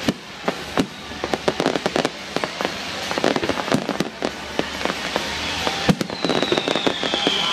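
Aerial fireworks display: a rapid, continuous string of sharp bangs and crackles from bursting shells, with a high whistle falling slightly in pitch near the end.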